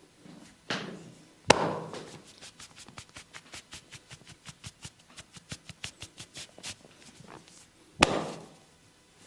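Hands percussing bare skin in a massage: two loud open-hand slaps about six and a half seconds apart, with a fast even run of light taps, about five a second, between them.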